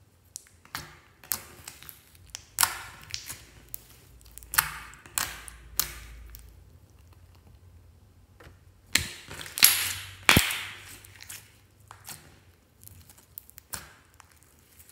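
Glossy slime being stretched, folded and squeezed by hand, giving irregular sticky crackles, pops and squelches, with a louder run of pops about two thirds of the way through.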